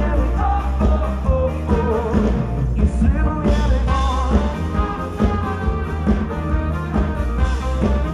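Live folk-rock band playing over a steady drum beat: accordion, electric guitars and bass, with trombone and saxophone, and singing.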